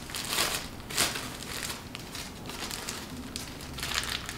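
Thin plastic bag crinkling and rustling as it is handled and pulled open, in irregular bursts, loudest about a second in.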